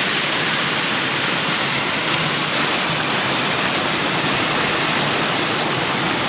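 Steady, loud rush of water with no change in pitch or rhythm, cutting in and out abruptly.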